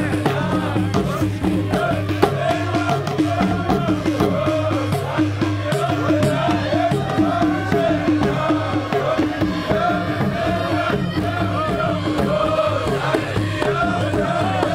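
Traditional folk music from a baroud troupe: group chanting over steady rhythmic percussion.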